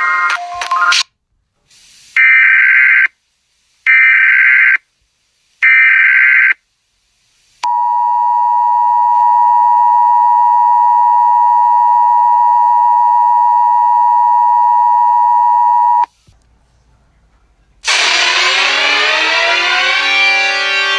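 Emergency Alert System broadcast: three SAME header data bursts, each a harsh digital screech about a second long, about a second apart. These are followed by the EAS two-tone attention signal, held steady for about eight and a half seconds. After a short gap, a swell of falling tones begins near the end.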